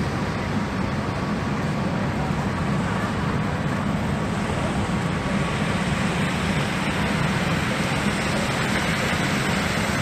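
Steady city traffic noise: an even hiss with a low rumble underneath.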